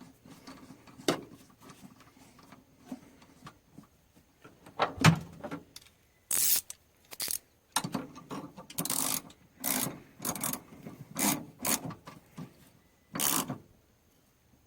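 Hand-work on an oil catch can and its fittings: a series of short clicks, knocks and scraping or rubbing sounds. They are sparse at first, then come thick and irregular from about five seconds in until near the end.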